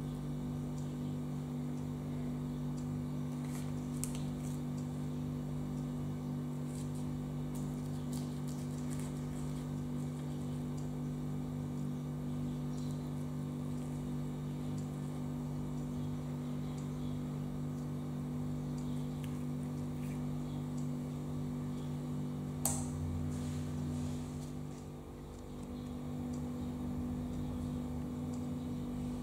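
A steady low hum, with a few faint clicks and one sharper click about three-quarters of the way through; the hum dips briefly soon after.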